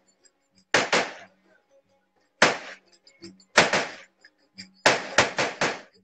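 Davul, the large Turkish double-headed bass drum, struck with a mallet: three single beats spaced over a second apart, then four quick beats near the end, each ringing briefly.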